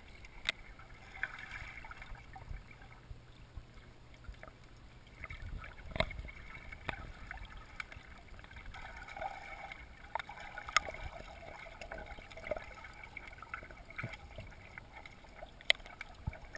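Faint water sloshing and gurgling around swimming dogs, with scattered sharp clicks and knocks, the loudest about six and eleven seconds in.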